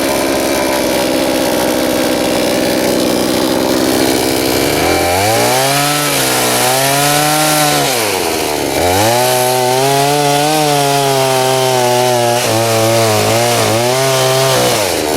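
Chinese-made two-stroke chainsaw cutting into a sassafras stump, its engine pitch rising and falling as it works. The pitch drops sharply about nine seconds in and again near the end.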